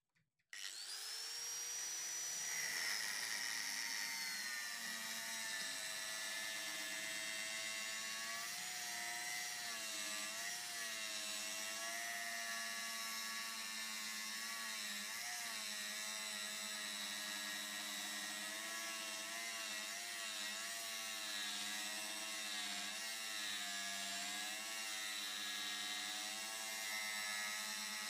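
Corded angle grinder switched on about half a second in, its whine rising as the motor spins up, then running steadily as the disc grinds the edge of a steel knife blank, the pitch wavering as the disc bears on the metal.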